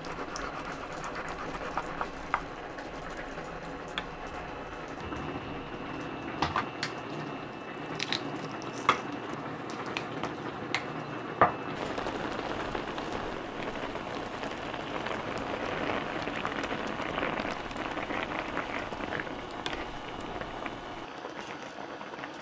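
A pan of water with radish and a soup-stock pack at a rolling boil, bubbling steadily. A few sharp clicks and knocks of kitchen utensils come in the first half.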